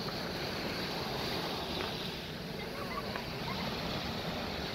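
Small ocean waves breaking and washing up the sand, a steady surf wash with wind rumbling on the microphone.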